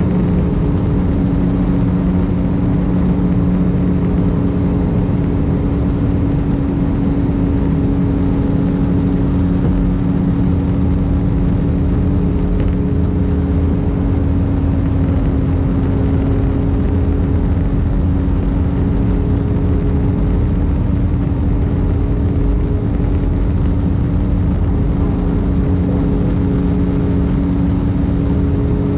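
Airbus A319 cabin noise on approach: steady jet engine drone and rushing air, heard from a window seat over the wing. A couple of steady low hums run underneath, one fading out about halfway through.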